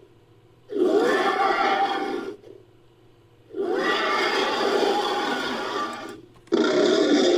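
Made-up Neovenator dinosaur creature calls, edited together from animal and monster recordings: three separate whinny-like roars, each about two seconds long, with a pitch that arches up and then down. The third call starts near the end and is still going.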